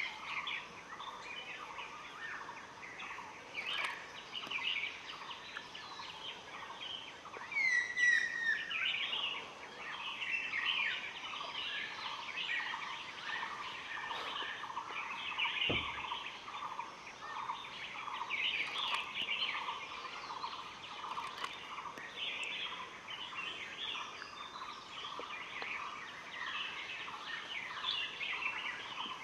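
Dense chorus of wild birds calling over one another, many short repeated calls layered together, with one clear falling whistle about eight seconds in.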